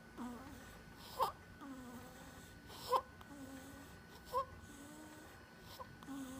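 Sleeping infant snoring: four short, squeaky snorts about a second and a half apart, with a low, drawn-out breath sound between them.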